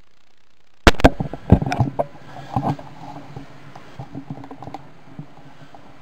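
Knocks and clattering in an empty wood-framed room. A sharp knock comes about a second in, then a quick run of louder knocks over the next second, a few more shortly after, and lighter scattered knocks and rustling.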